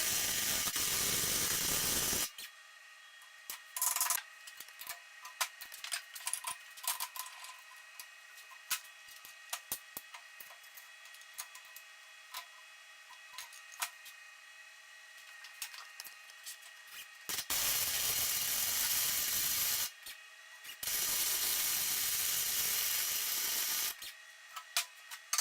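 Flux-core wire-feed welder arc sizzling in three bursts: one of about two seconds at the start, then two more near the end with a short break between them. In the quieter stretch between, scattered sharp clicks.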